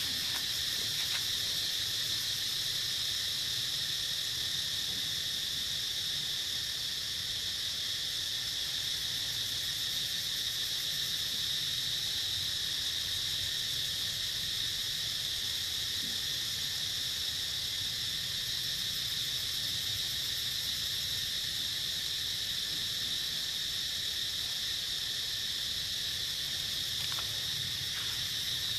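Steady, high-pitched drone of an insect chorus, unchanging in pitch and level.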